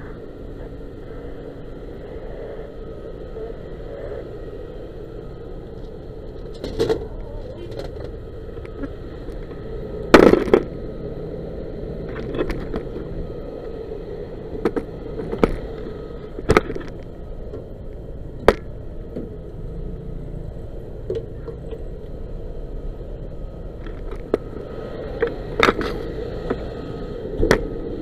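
Knocks and scrapes from a body-worn camera jostling against a firefighter's turnout coat, the sharpest about ten seconds in. Under them runs a steady engine drone from a fire truck standing close by.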